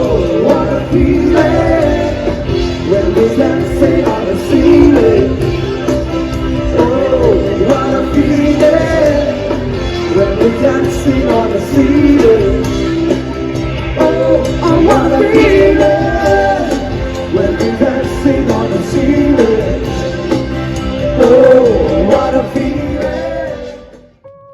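Pop-rock song with a singer over a full band; it cuts off sharply near the end.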